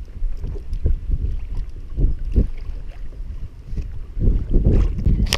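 Wind buffeting the microphone on a kayak, with water slapping against the hull in uneven low thumps. The thumps swell near the end and close with a sharp click.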